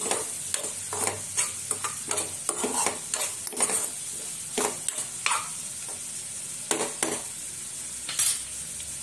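Spatula stirring and scraping prawns and sliced onions in a non-stick kadai over a steady frying sizzle. The scraping strokes come thick and fast for about the first five seconds, then only a few more near the end while the sizzle goes on.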